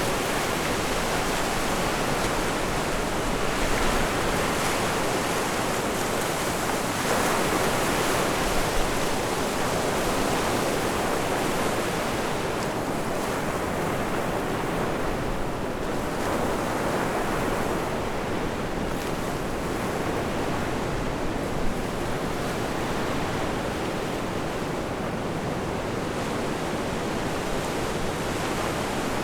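Surf washing onto the beach with strong wind blowing across the microphone: a steady rushing noise that swells and eases.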